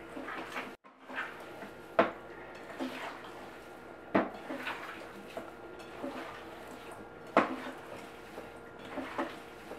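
Kitchen handling sounds: a few sharp clanks and knocks of a stainless steel mixing bowl and dishes, three of them louder, with soft handling noise of ground meat being mixed by hand in between.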